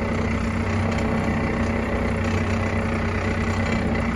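Forklift engine running steadily at low speed while the forklift is maneuvered with its load.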